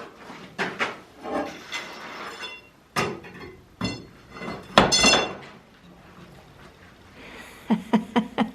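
Cast-iron boiler parts clanking and knocking as they are handled: a string of sharp metal knocks, the harder ones ringing briefly, the loudest about five seconds in, and a quick run of short knocks near the end.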